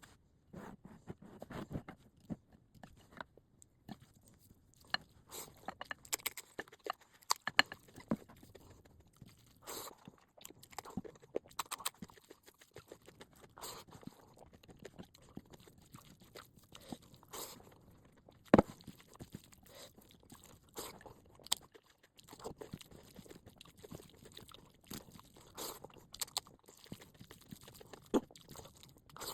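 Close-miked eating: chewing with irregular wet mouth clicks and smacks, typical of a mukbang, with one sharper click a little past the middle.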